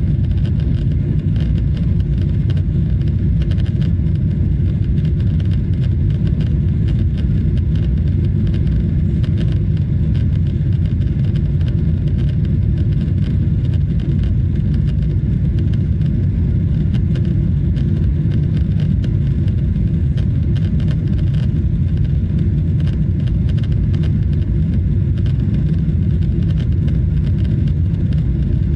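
Steady low rumble of cabin noise aboard a Boeing 777-300ER airliner, engines and airflow, holding even throughout.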